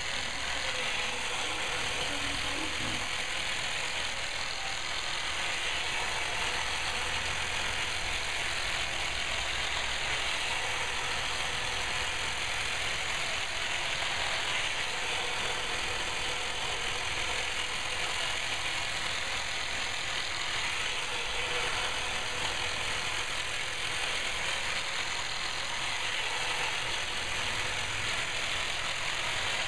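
Steady mechanical running noise of a small motorised device, even and unbroken, with no clear pitch or beat.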